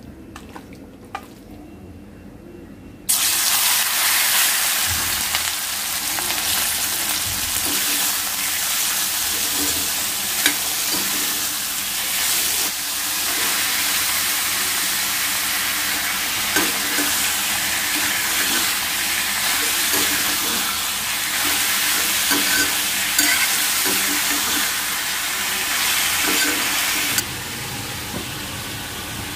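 Prawns sizzling loudly in hot oil in a kadhai, starting suddenly about three seconds in as they go into the pan, with a steel spoon stirring and knocking against the pan. The sizzle drops away sharply near the end.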